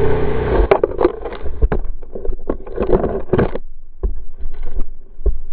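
KTM 300 EXC two-stroke enduro engine running, stopping under a second in. It is followed by a rapid run of knocks, thuds and rustling of dry leaves and branches as the bike crashes on the forest floor, then a few scattered knocks.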